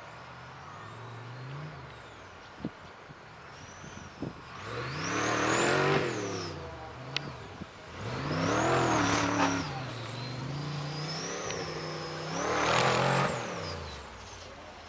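Off-road race buggy's engine revving hard in three surges, each rising and then falling in pitch, with a high whine that climbs and drops along with it. Between the surges the engine runs steadily, and a few sharp knocks come before the second and third surges.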